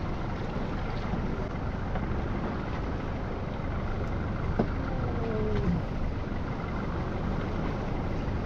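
Steady rush of wind and sea noise with a low rumble, heard on a small open fishing boat. A single short knock comes about four and a half seconds in, and a faint falling cry follows.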